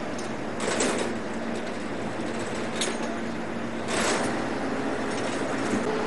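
A boat's engine running with a steady hum, with three or four short rushing noises over it.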